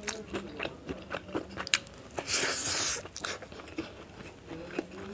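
Close-up mouth sounds of a person eating: chewing with crunches and wet mouth clicks. A short, loud hiss comes a little over two seconds in.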